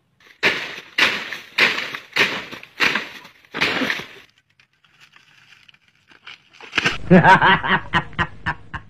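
A run of six heavy knocks or crashes, about two thirds of a second apart and each dying away quickly. About seven seconds in, a man bursts into loud, hearty laughter.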